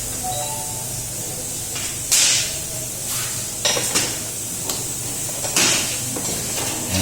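Work on an electric scooter's rear drum brake: several short, sharp hissing and clattering bursts, the biggest about two seconds in and again near the middle and end, over a steady low hum.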